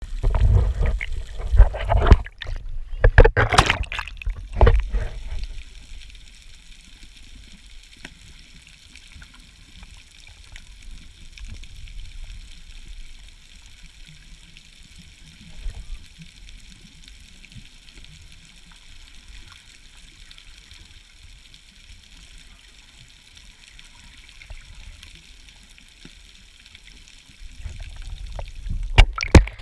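Muffled water sound heard by an action camera underwater: heavy sloshing and thumps during the first five seconds, then a quiet steady hiss with faint scattered crackling, and sloshing again near the end.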